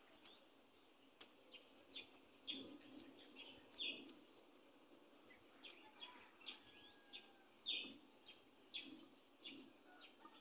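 Faint bird chirps: short, high notes at irregular intervals, about one a second.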